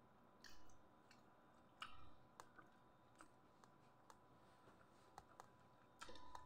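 Faint eating sounds: scattered small clicks and a few short, soft bursts of chewing, about half a second in, about two seconds in and again about six seconds in.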